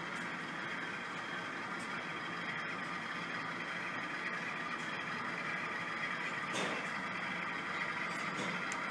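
Sound-equipped HO scale diesel locomotives running slowly, their DCC sound decoders playing a steady diesel engine sound through the models' small onboard speakers.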